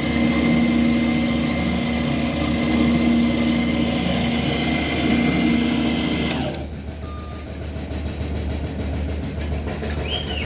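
Lathe's electric drive running steadily with a hum and a thin high whine. About six seconds in, the whine and hum drop away suddenly, leaving a quieter low hum.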